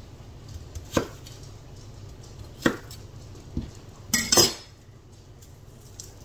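Chef's knife cutting an onion on a wooden cutting board: a few sharp knocks of the blade against the board, then a longer clatter about four seconds in as the knife is laid down on the board.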